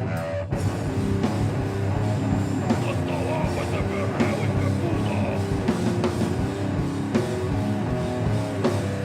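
A metal band playing live: electric guitar, bass and drum kit with a steady driving beat.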